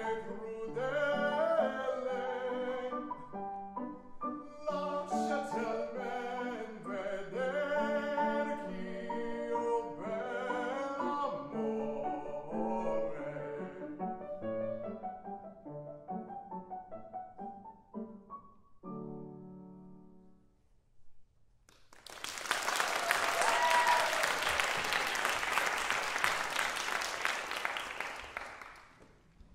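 A man singing in classical operatic style with piano accompaniment, ending on a final chord about two-thirds of the way through. After a short pause the audience applauds, with someone cheering briefly early in the applause.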